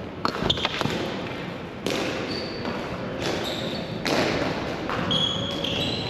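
Ball hockey play in an indoor rink: a quick run of sharp knocks of sticks and ball in the first second, then scuffing and shuffling of players' feet with short high squeaks.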